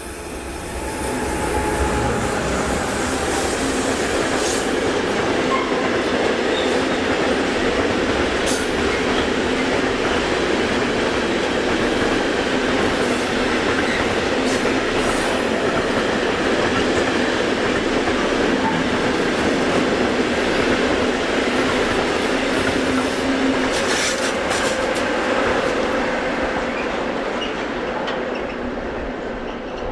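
Freight train of tank wagons rolling past: a steady rumble of wheels on rail with occasional clicks and a faint steady tone. It builds over the first couple of seconds and eases off near the end.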